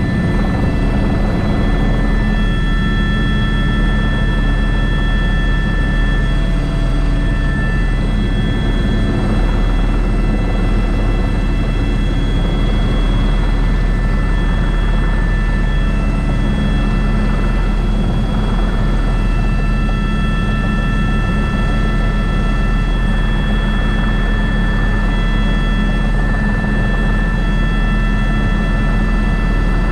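Airbus H125 (AS350 B3) helicopter heard from inside the cockpit in cruise flight: a steady turbine whine with several high tones over a constant low rumble from the rotor and drivetrain.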